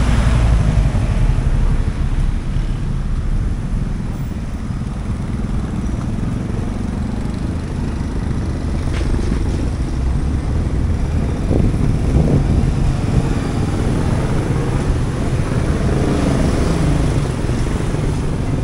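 Street traffic: motorcycles and cars running past in a steady low rumble.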